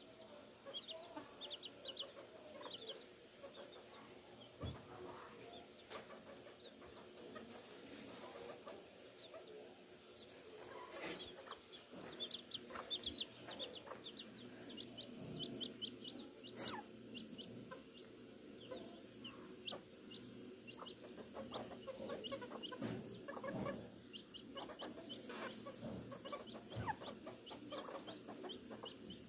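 Bantam chickens clucking softly and low while dust bathing in dry dirt, with runs of quick, high, short chirps throughout and a few brief scuffing rustles.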